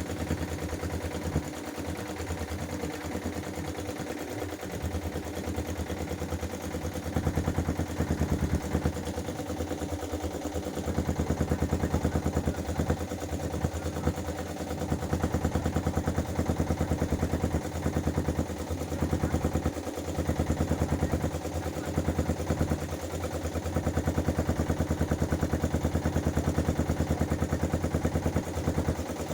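Motorboat engine running steadily with a fast, even chugging beat, getting louder about eleven seconds in.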